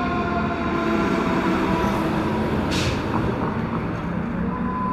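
Fire engine's air horns sounding a chord of several steady notes, dying away about two seconds in, over the rumble of the 2012 KME pumper's engine. A short hiss of air comes near the middle, and a single steady horn-like tone starts near the end.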